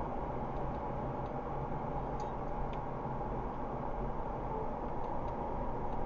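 A car driving, with steady road and engine noise and a few faint, irregular ticks.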